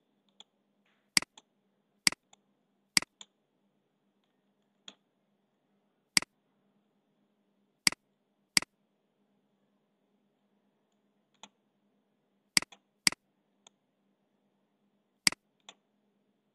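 Computer mouse clicking: sharp single clicks every second or few, some in quick pairs, over a faint low hum.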